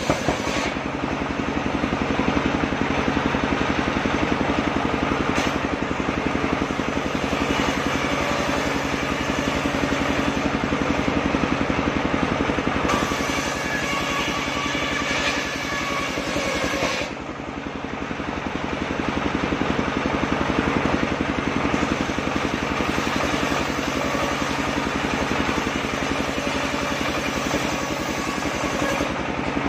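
Engine-driven circular saw (serkel) running continuously while sawing waru wood, its sound shifting in pitch and loudness as the blade works, with a brief drop in loudness about 17 seconds in.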